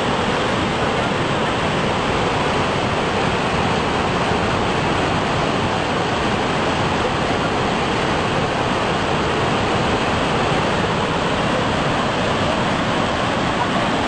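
A tall waterfall, about 50 m high in two tiers, pouring steadily over rock, with an even rushing sound that never lets up.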